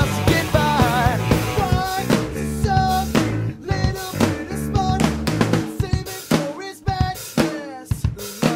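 Rock music with a drum kit keeping a steady beat under a melodic line.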